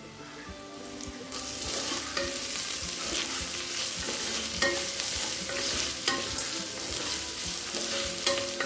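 Sliced onions, green chillies and whole spices sizzling in ghee in a stainless steel pressure cooker, stirred with a wooden spatula that scrapes and taps against the pan. The sizzling grows louder about a second in.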